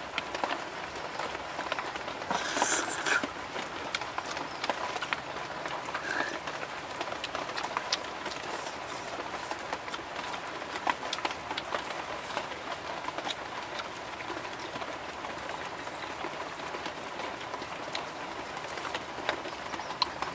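Scattered small clicks and knocks of cooked snail shells being handled in a clay bowl, over a steady background hiss.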